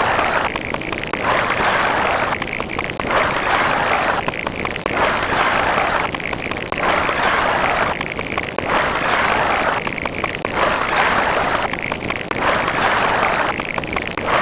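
A steady rushing noise sound effect, pulsing in a repeating pattern about every two seconds, like a short clip played in a loop.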